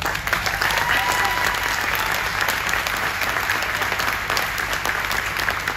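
A large audience applauding: dense, steady clapping that breaks out suddenly and tapers slightly near the end.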